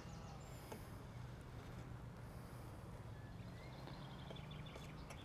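Quiet outdoor ambience: a steady low hum and faint hiss, with a few faint distant bird chirps.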